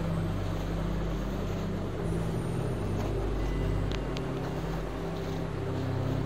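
Steady low mechanical hum, like a motor or appliance running, with two faint ticks about four seconds in.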